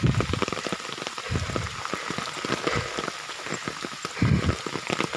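Heavy rain pattering steadily, with many close drop hits and dull low thumps about every second and a half.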